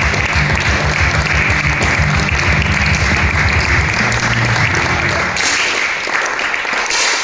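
Spectators applauding over loud arena music with a fast, pounding bass beat; the bass drops out about five seconds in while the clapping goes on.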